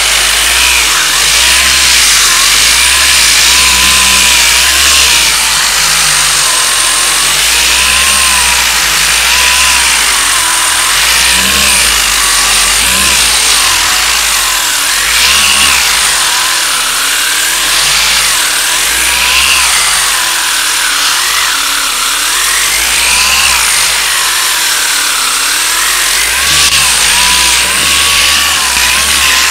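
Power sander running continuously against body filler. Its whine repeatedly dips in pitch and comes back up as it is pressed into the panel and eased off.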